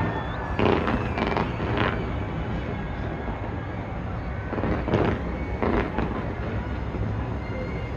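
Fireworks display heard from a distance: a steady low rumble of bursts, with two louder clusters of bangs and crackles, about a second in and again around five seconds.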